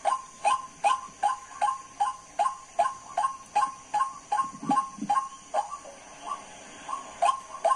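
White-breasted waterhen calls: a rapid, even string of short, sharp, falling notes, about three a second, broken by a pause of a second or so near the end.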